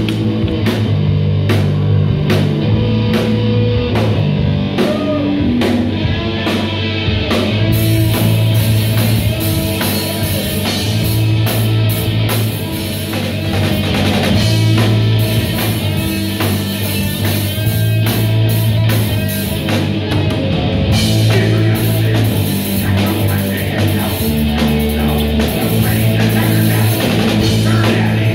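Live rock band playing an instrumental passage on electric guitar, electric bass and drum kit.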